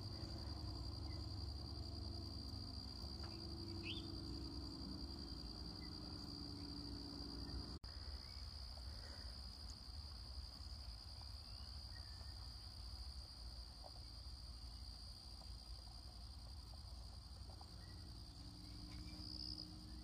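Insects trilling steadily outdoors, a single unbroken high-pitched tone, over a faint low rumble.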